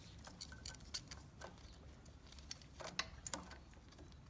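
Faint, irregular light clicks and small metal clinks of mounting screws being fitted by hand into a replacement ignition armature on a Briggs & Stratton twin-cylinder engine.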